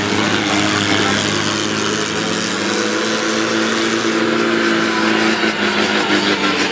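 Off-road vehicle engines running, one engine note dipping and then climbing in pitch about halfway through.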